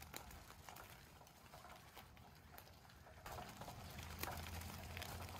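Faint footsteps crunching on gravel, many small irregular clicks, joined about three seconds in by a low steady hum.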